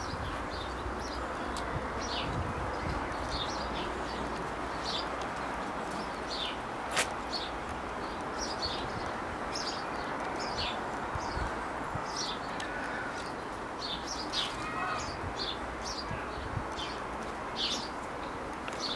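Small birds chirping in many short, high notes, scattered irregularly over steady background noise, with a single sharp click about seven seconds in.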